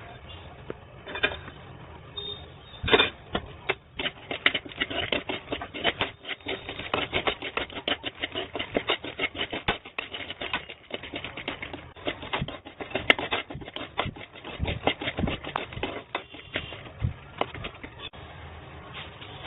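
Puffed lotus seeds (makhana) being stirred, rattling with a rapid, irregular clatter of light clicks against the vessel. A few scattered clicks at first, then a dense run of clicking for most of the stretch that stops near the end.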